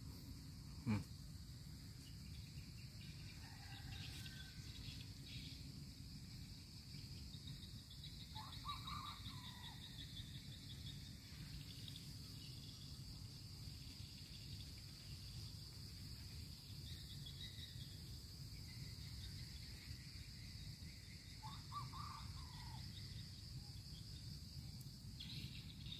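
Faint, steady chirring of insects in an orchard, with a low rumble beneath. A bird gives a short call twice, about a third of the way in and again near the end.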